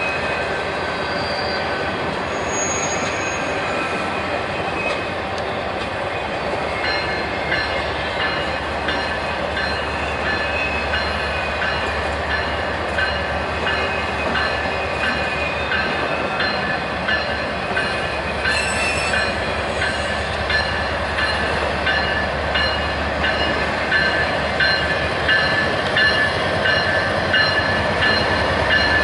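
Freight train rolling past: steel wheels squealing against the rails, with repeated clicks over rail joints, while the approaching diesel locomotives grow slowly louder towards the end.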